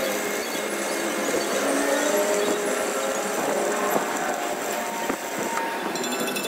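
Stick welding arc crackling steadily as a broken truck front axle beam is welded. The sound changes near the end as the arc breaks off.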